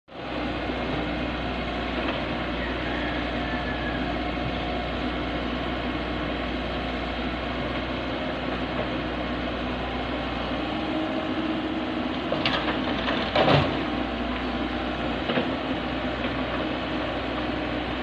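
Tracked excavator's diesel engine running steadily while it works, with a brief cluster of clattering knocks about two-thirds of the way through and a lighter knock shortly after.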